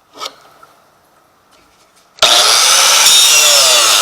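An angle grinder on a chop-saw stand starts suddenly about two seconds in and cuts into metal with a loud, steady grinding screech, its pitch wavering as the disc bites. A light click comes just before.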